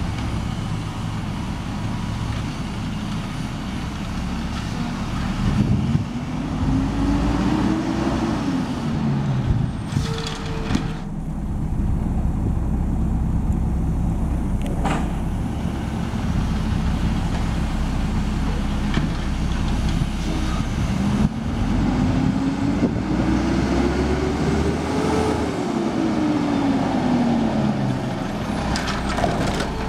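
Mack automated side-loader garbage truck's diesel engine running, its pitch rising slowly and then falling back twice as it revs up and down. A brief hiss of air brakes about ten seconds in.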